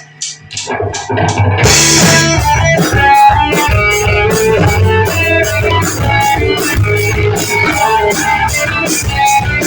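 A live rock band starts a song: a few quick clicks count it in, then electric guitar, bass guitar and drum kit come in together on a cymbal crash and play on with a steady beat.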